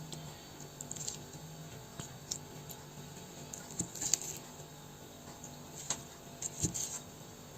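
Faint, scattered clinks and soft clicks of cutlery against a plate, over a faint steady low hum.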